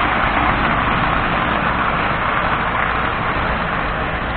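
Postwar Lionel O-gauge train, a 2020 steam turbine locomotive pulling freight cars, running steadily on three-rail metal track: a continuous rolling rumble of wheels on rails and motor whir, with a steady low hum underneath.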